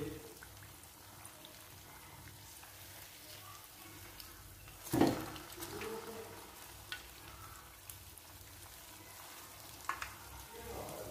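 Battered corn-on-the-cob pieces deep-frying in hot oil in a wok, with a steady sizzle. About five seconds in there is a sharp loud clack as metal tongs come in to turn the pieces, followed by a few lighter clicks.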